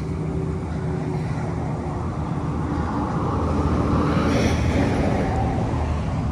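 A motor vehicle driving past, its noise swelling to its loudest about four seconds in and then fading, over a steady low engine hum.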